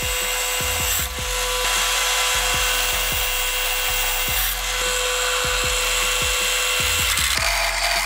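Drill press boring through a metal plate with a twist drill under liquid coolant: a steady high-pitched whine with a cutting hiss, changing near the end. Background music with a steady beat runs underneath.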